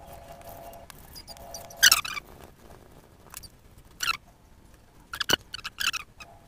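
Aluminium foil crinkling in a few short bursts as it is twisted and handled, with a sharp tap about five seconds in.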